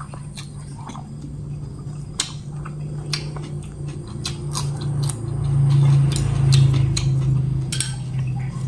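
A person chewing very chewy fried rat meat close to the microphone, with wet mouth sounds and scattered sharp clicks. A steady low hum runs underneath and swells in the middle.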